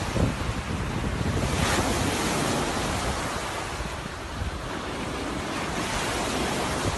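Steady rushing noise with a low, uneven rumble, strongest in the first second.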